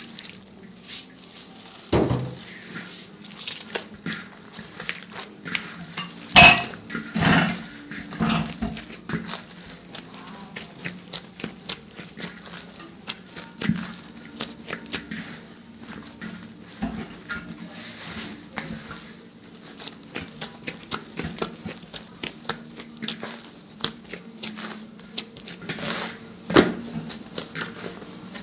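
Paratha dough being mixed and kneaded by hand in a large metal pan: irregular soft knocks, slaps and scrapes of the dough and hands against the metal, with a few louder knocks, over a steady low hum.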